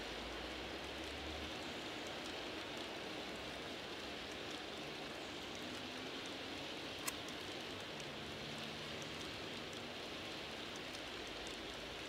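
A long G scale model train of tank cars rolling along garden track: a steady hiss of many wheels on the rails, with scattered faint clicks and one sharper click about seven seconds in.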